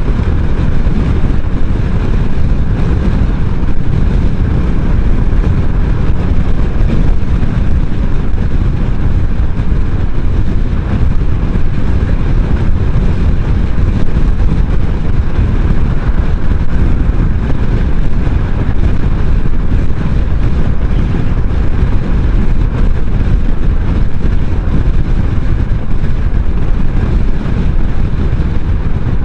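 Steady, loud rush of wind and road noise from riding a maxi-scooter at highway speed, a dense low rumble without letup.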